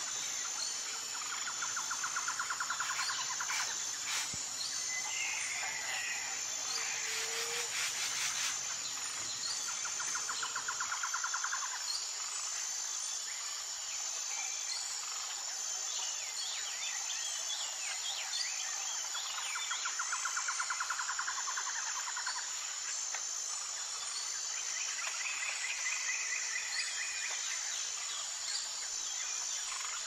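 Birds singing and chirping over a steady high chirring of insects, with a fast rattling trill that comes back three times, each lasting about two seconds.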